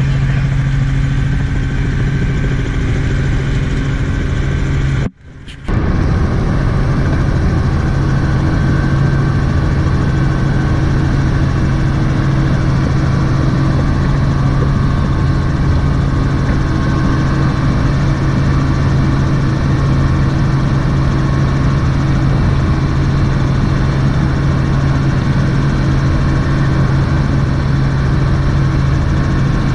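Helicopter in flight heard from inside the cabin: a loud, steady drone of engine and rotor with a strong low hum. It drops out briefly about five seconds in, then carries on unchanged.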